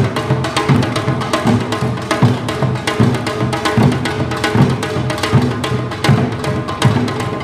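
Korean traditional drums, a janggu hourglass drum and a buk barrel drum, struck together in a fast, dense rhythm with a steady deep beat.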